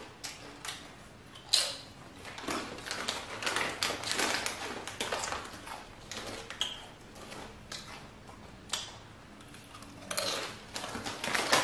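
Crinkling of a Doritos chip bag as a hand rummages in it, with crunching of tortilla chips being eaten: irregular crackles and a few sharp clicks.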